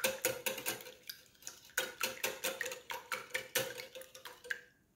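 Wire whisk beating eggs in a glass bowl: quick, rhythmic clinks of the wires against the glass, about four or five a second, over a faint ring from the bowl. The beating stops near the end.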